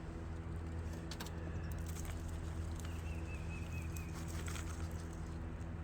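Steady low hum of a running motor, with a few faint taps and a short thin high chirp about three seconds in.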